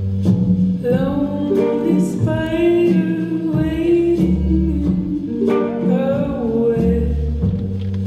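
A song with a singing voice over plucked guitar and a steady bass line; the voice comes in about a second in.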